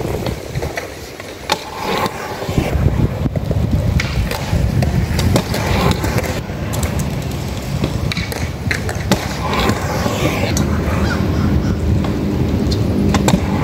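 Kick scooter's wheels rolling on a concrete skate park bowl: a steady rumble that builds about two seconds in, with a few sharp clacks.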